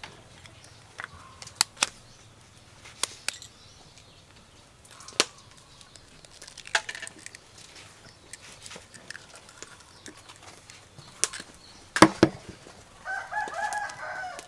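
Scattered sharp clicks and taps of an egg and plastic wrap being handled over a bowl, the loudest a sharp knock about twelve seconds in as the egg is cracked. Near the end a chicken calls for about a second and a half.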